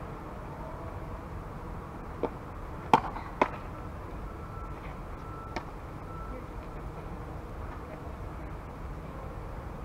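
A softball pitch popping into the catcher's mitt: one sharp smack about three seconds in, with a lighter click just before it and another just after, over a steady low rumble of outdoor background noise.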